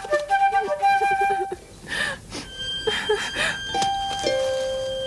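Flute music playing a quick melody, which gives way after a few short swishing sounds to long held pure tones: a high one, then a lower one that starts about four seconds in.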